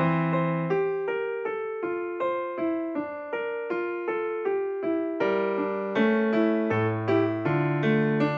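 Background music: an electric piano playing a steady run of notes with a bass line.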